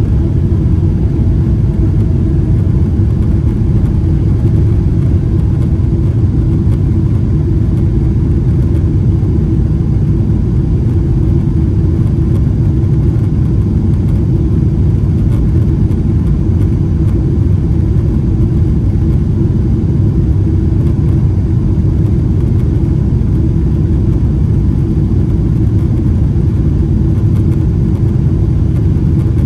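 Boeing 777-300ER's GE90-115B jet engines running at high takeoff thrust: a loud, steady low rumble with a faint hum, unchanging throughout.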